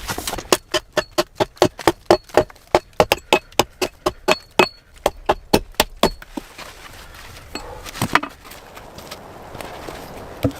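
Rapid chopping on wood: sharp, even strokes about four or five a second for some five seconds, then a few scattered knocks.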